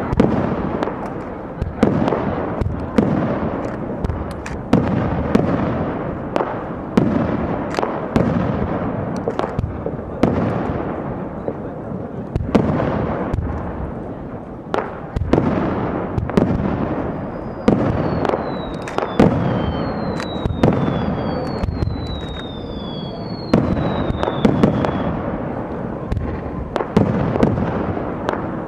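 Fireworks shells bursting overhead in quick succession, each sharp bang trailing off into crackle and echo. In the later part of the barrage a handful of high whistles glide downward in pitch among the bangs.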